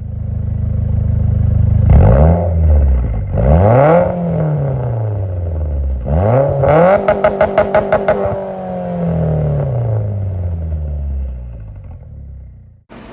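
Mitsubishi Lancer Evolution X's turbocharged four-cylinder accelerating hard through the gears, the revs climbing and dropping sharply at each shift. About seven seconds in there is a quick run of pops.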